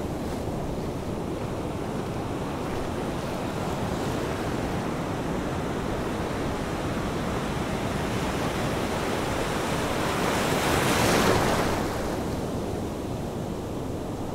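Steady rushing wind, swelling into a louder gust about eleven seconds in.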